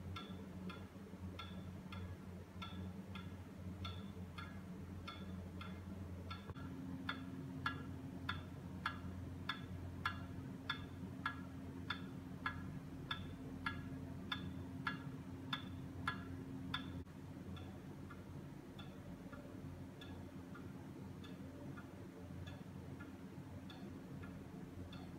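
Pendulum wall clock ticking steadily, a little under two ticks a second, the ticks louder through the middle stretch, over a faint low hum.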